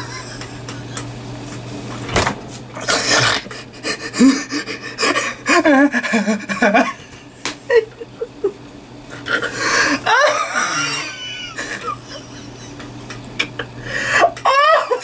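A man laughing uncontrollably in repeated bursts, breaking into a few high-pitched squealing glides near the middle and again near the end.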